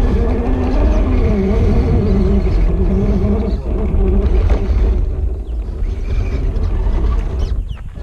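Scale RC crawler truck's electric motor and geared drivetrain whining in shifting pitch as it crawls up a tree's root flare, heard from a camera mounted on the truck, over a heavy low rumble. The sound thins out and drops near the end.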